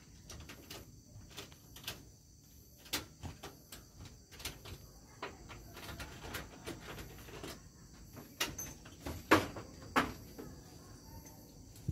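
Insects chirring steadily in the background, a constant high-pitched sound, with scattered clicks and knocks throughout. The loudest knocks come about nine and ten seconds in.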